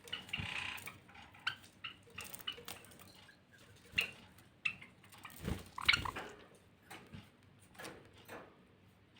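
Small finches making scattered short chirps amid light taps and clicks. A louder burst of calls with low thumps comes about six seconds in.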